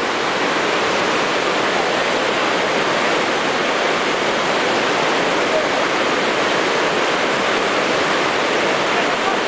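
Whitewater rapids rushing over a slalom course, a steady, unbroken rush of water.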